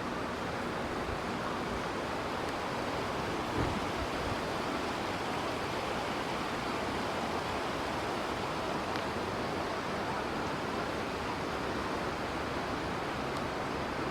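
Steady, even rushing noise, with a brief soft thump about three and a half seconds in.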